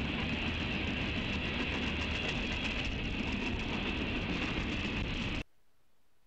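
Freight train cars rolling past on the rails, a steady rumble of wheels on track, heard through a trackside webcam microphone. The sound cuts off abruptly near the end, leaving only faint hiss.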